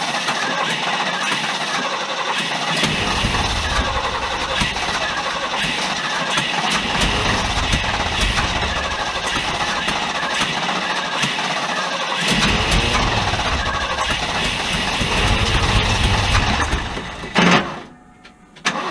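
The 1974 Ford F-350's 390 V8 running unevenly, its deep low rumble swelling and fading in three long stretches. Near the end a short loud burst, then the sound drops away for about half a second.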